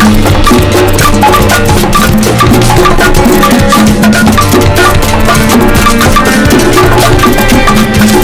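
Very loud, percussive music played near full scale, with a steady beat of wood-block-like clicks over a sustained bass.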